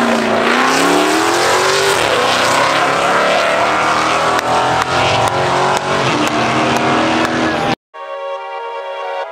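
A car engine revving hard, its pitch swinging down and up over the first couple of seconds, then climbing steadily for several seconds as the car accelerates. It cuts off abruptly near the end and electronic music takes over.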